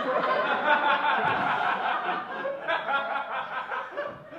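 Audience laughing, many voices at once, swelling at the start and dying down near the end.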